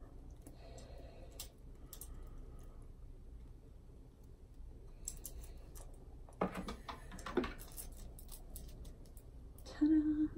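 String of Christmas lights being untangled by hand, the plastic bulbs and wire clicking and rattling against each other in scattered bunches. A brief hum from a voice near the end.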